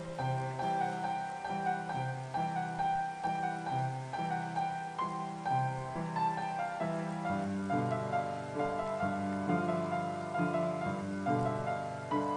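Background piano music: a gentle melody over a repeating bass line, growing fuller from about halfway through.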